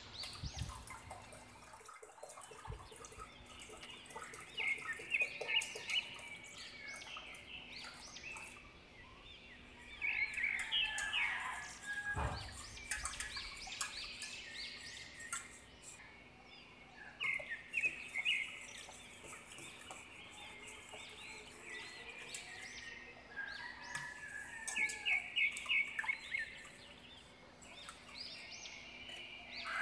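Background birds and chickens calling: clusters of quick, repeated high chirps and clucks come every several seconds. There is one dull knock about twelve seconds in.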